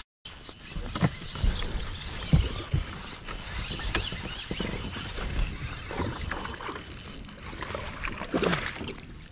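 A spinning reel is cranked as a hooked largemouth bass is reeled up to the boat, with scattered sharp knocks from handling the rod and boat. The water is disturbed by the fish near the end.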